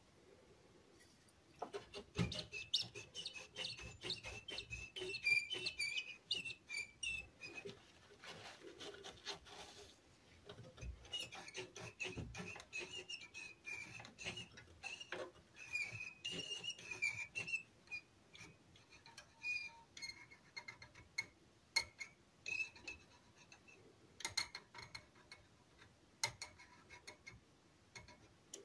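High, wavering squeak with small clicks from a front-panel control of a Grundig 4040W radio as it is turned back and forth, in long stretches. The control is running dry, and the squeak sounds as if the potentiometer wiper were rubbing on bare metal.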